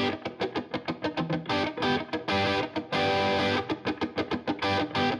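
Intro music: electric guitar playing a quick run of picked notes with distortion, with a few longer strummed chords.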